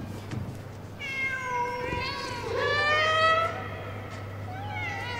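Domestic cat meowing: long, wavering meows from about a second in, then a fainter, shorter meow near the end.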